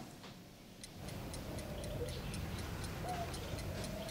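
A clock ticking steadily, about four ticks a second, starting about a second in over a low room hum. A faint wavering tone sounds twice in the middle.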